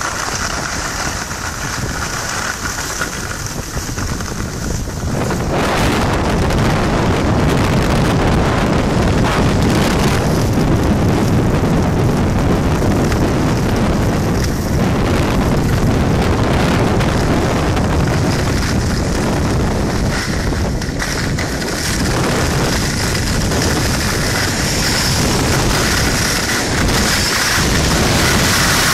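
Wind rushing over the microphone together with skis hissing and scraping on packed snow during a downhill ski run, getting louder about five seconds in.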